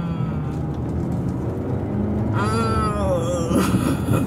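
Car cabin road noise while driving, a steady low rumble, with a short wordless vocal sound, a hum that bends and falls, about halfway through.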